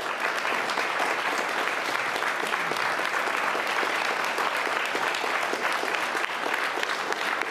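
Applause from a small crowd: many hands clapping in a dense, steady patter.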